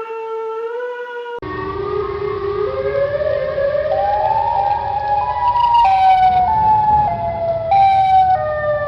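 Emergency alert siren tones. A pitched wail rising in pitch cuts off about a second and a half in to a second, noisier siren recording with a low rumble beneath; its tone climbs in steps, then drops back in steps near the end.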